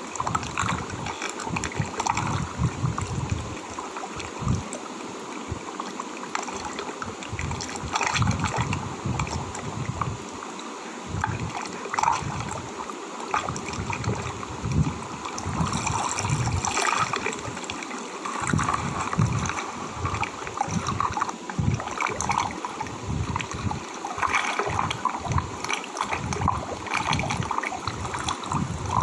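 Gurgling, sloshing water, with irregular low thuds throughout.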